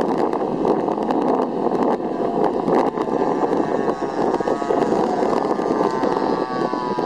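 Small combustion engines of RC model airplanes buzzing in the air, a steady drone under wind buffeting the microphone. About halfway through, one engine's whine stands out more clearly and wavers a little in pitch.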